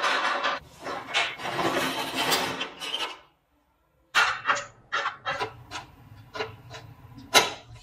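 Rusted sheet metal scraping and grating as the rotted seat pan is worked loose from an old motorcycle frame, then, after a short break, a string of sharp metal clinks and knocks from the rusty parts being handled, the loudest near the end.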